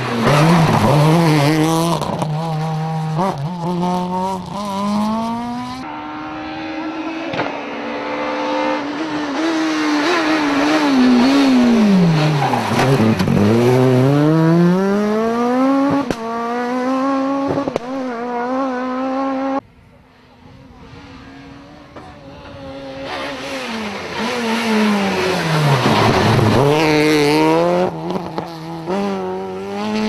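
Rally cars at racing speed, a Renault Clio S1600 among them: engines revving high, with the pitch dropping as they brake and downshift for corners and climbing again as they accelerate hard through the gears. There is a quieter stretch about two-thirds through before the next car comes up loud.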